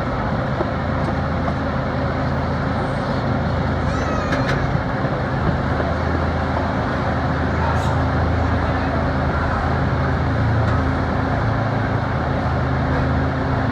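Steady rumble of a moving train heard from aboard, with a constant low drone and a brief high squeak about four seconds in.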